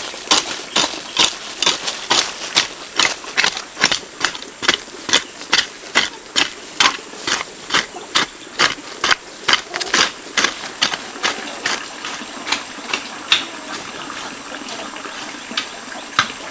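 Garden hoe chopping into dry soil in quick regular strokes, about two or three a second, thinning to a few scattered strikes after about twelve seconds. A faint steady high tone runs underneath.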